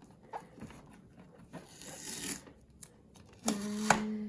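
Packaging being handled during unboxing: small clicks and a rustle of plastic or paper, with a longer rustling tear about two seconds in. Near the end a short steady tone sounds for under a second.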